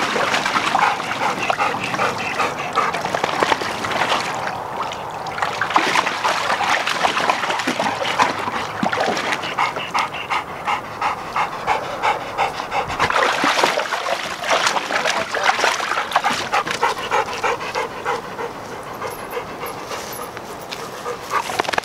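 Black Labrador retriever panting steadily to cool off after retrieving exercise, with water sloshing in a plastic kiddie pool as it moves in it.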